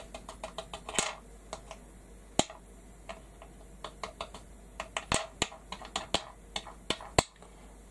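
Stippling brush dabbing paint, an irregular run of short taps and clicks, several a second, with a few sharper clicks among them.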